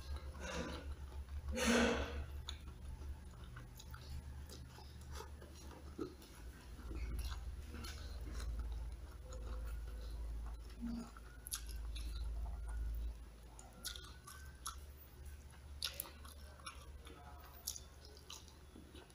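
Close-miked chewing and mouth noises of a person eating fried chicken and rice by hand, with scattered wet clicks and smacks and a louder burst about two seconds in. A low steady hum runs underneath.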